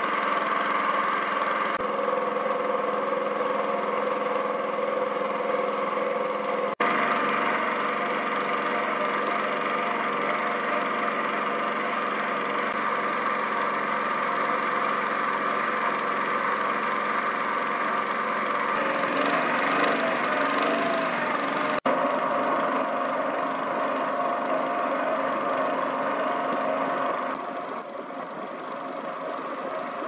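Small boat's engine running steadily at an even speed, a constant drone with brief breaks about seven seconds in and again near twenty-two seconds, turning quieter near the end.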